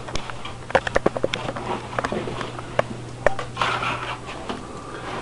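Handling noise: a quick run of light clicks and knocks about a second in, and rustling near four seconds, over a steady low hum.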